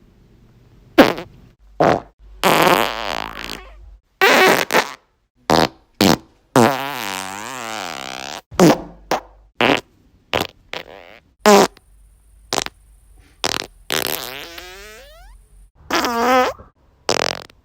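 A rapid series of about twenty farts separated by short gaps. Most are short blasts, and a few are longer sputtering ones, up to about two seconds, whose pitch wobbles up and down or falls.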